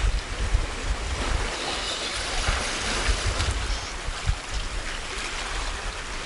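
Sea waves washing on a rocky shore, a steady surf noise, with wind buffeting the microphone in irregular low rumbling gusts.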